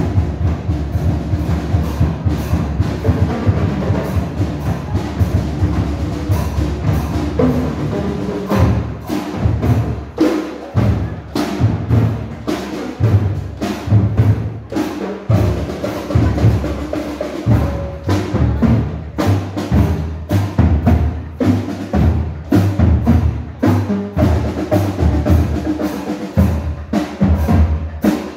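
Community marching band playing, drums and percussion beating a steady, driving rhythm under held tones from the band.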